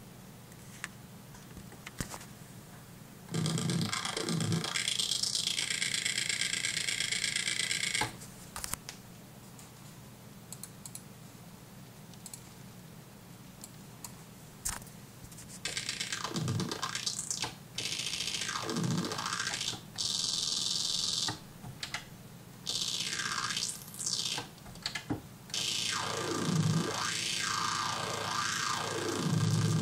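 Synthesizer playing buzzy sustained notes whose tone sweeps down and back up. There is one long phrase a few seconds in, then a run of shorter phrases with brief pauses from about halfway on. In the quiet gaps, faint rain patters.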